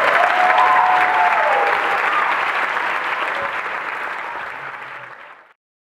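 Large audience applauding, a dense sustained clapping that dies down and then cuts off abruptly about five and a half seconds in.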